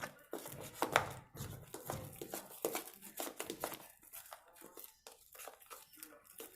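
Homemade slime of glue, shaving foam and Ariel detergent being mixed, giving irregular sticky crackles and smacks several times a second as it thickens.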